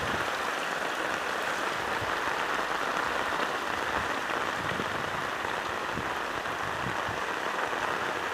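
Heavy rain and rushing floodwater, a steady even hiss.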